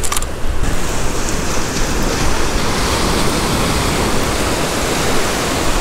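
Steady rush of ocean surf washing onto the beach, turning hissier about half a second in.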